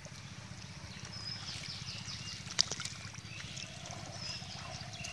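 Hands splashing and sloshing in shallow muddy pond water while groping for fish, with one sharp click about two and a half seconds in.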